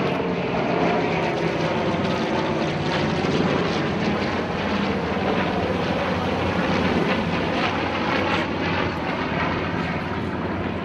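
Grumman F7F Tigercat's twin Pratt & Whitney R-2800 radial engines running steadily in a flypast overhead.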